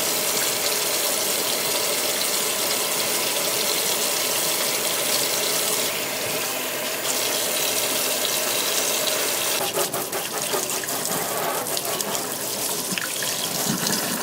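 Steady rushing hiss of water running, as from a tap. For the last few seconds a rapid run of clicks and rattles rides on top of it.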